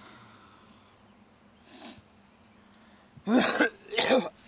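A man coughs twice in quick succession, a little over three seconds in, each cough harsh and wheezy.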